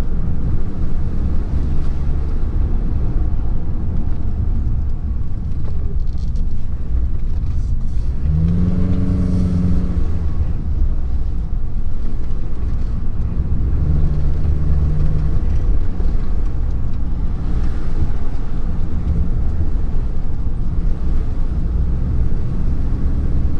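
Car driving along a road, heard from inside the cabin: steady engine and road rumble, with the engine note rising and swelling for a couple of seconds about eight seconds in.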